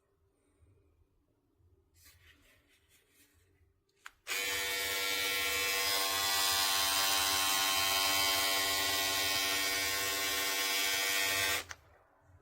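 Manscaped Lawn Mower 3.0 electric trimmer, with a newly fitted ceramic blade, switched on with a click about four seconds in. It runs with a steady buzz for about seven seconds, then cuts off.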